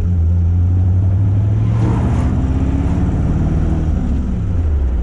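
1932 Ford coupe's 322 Buick Nailhead V8 running under way. Its note climbs about two seconds in and drops back near the end.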